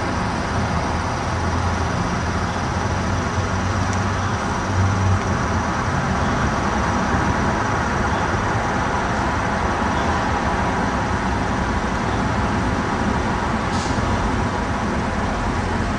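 Steady street traffic noise: a low rumble of passing vehicles, with one vehicle swelling louder about five seconds in.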